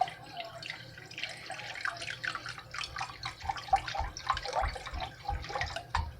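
Chicken broth being poured into a measuring cup: a quick, continuous run of liquid gurgles.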